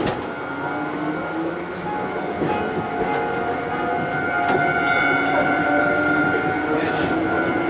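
Konan Railway 6000 series (ex-Tokyu 6000) electric train heard from the driver's cab as it accelerates, its motors and gears whining in several tones that slowly rise in pitch.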